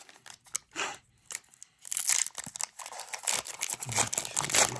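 A foil trading-card booster pack wrapper being crinkled and torn open, a short crackle just under a second in, then steady crinkling from about two seconds in.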